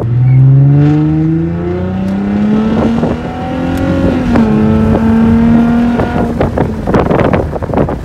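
2010 Ford Mustang's 4.0-litre V6 with its muffler deleted, accelerating: the exhaust note climbs steadily in pitch for about four seconds, holds at a steady pitch for about two more, then drops away near the end. Heard from inside the car's cabin.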